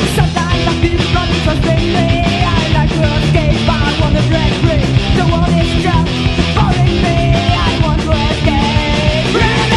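Punk rock music playing: a full band recording with loud, dense guitars and drums and a wavering melody line over it, with a sharp hit at the very start.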